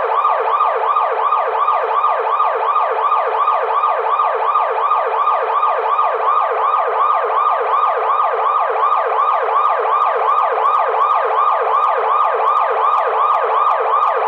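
Police car siren in fast yelp mode: a quick rising pitch sweep repeated several times a second, loud and steady.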